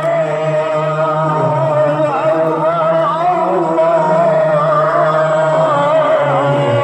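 Melodic chanting over a steady low drone, a wavering sung line that runs on without pause.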